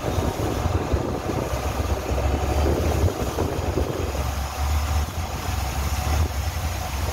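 A boat's engine running steadily under way, a low hum, with the rush of water and wind over it.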